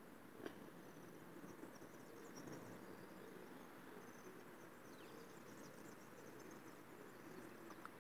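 Faint, high-pitched insect chirping in short repeated trills over a very quiet background, with a single small click about half a second in.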